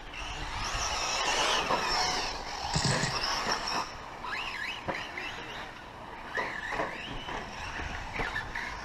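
Radio-controlled 4wd short-course race trucks racing on a dirt track: motors and gears whining, rising and falling in pitch as the trucks accelerate and brake, over the hiss of tyres on dirt.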